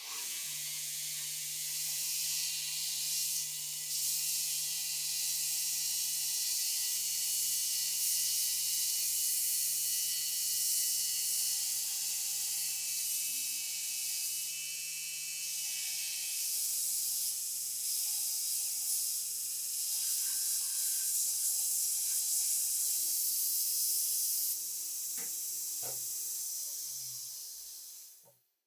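Electric belt grinder running with a steady low motor hum while its abrasive belt grinds a rusty steel rifle part, giving a steady hiss. The grinding stops a few seconds before the end and the motor then winds down.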